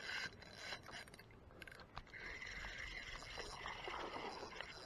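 Spinning reel being cranked to retrieve a topwater lure: faint scraping from the turning handle and gears, with a few light clicks.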